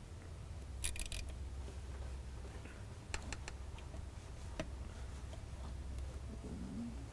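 Light metallic clicks and ticks of a hand driver tightening the two T20 Torx screws that hold a heater element in a diesel fuel filter bowl: a quick cluster about a second in, then a few sharp single ticks, over a low steady hum.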